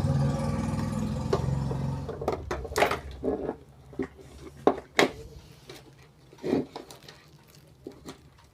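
A low, buzzy electrical hum that fades out about two to three seconds in, followed by a scattering of sharp clicks and knocks from parts and tools being handled on a workbench.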